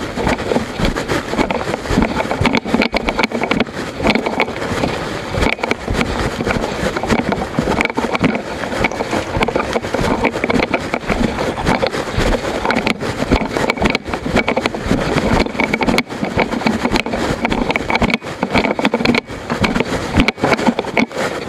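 Steady rattling and rustling, with many small knocks and wind noise, from an action camera that has broken loose from its mount and is jostled as the mountain bike is ridden over a rough trail.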